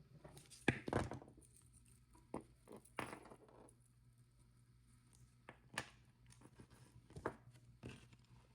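Scattered small clicks and taps of charms and beading tools handled on a work table while charms are attached to a necklace, about half a dozen, the loudest about a second in.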